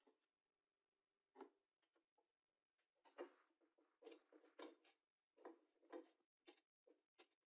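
Faint clicks, taps and scrapes of hands and a screwdriver working on the switch and wiring inside an old bench grinder's open metal switch box: one knock about a second and a half in, then a run of irregular clicks from about three seconds on.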